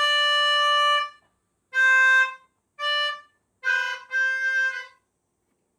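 A short tune in a reedy, harmonica-like tone: five held notes moving between two close pitches, the first the longest, each starting and stopping cleanly.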